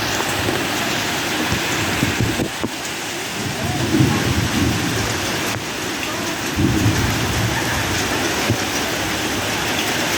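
Heavy rain pouring down steadily, with low rumbles rising under the downpour about four seconds in and again about seven seconds in.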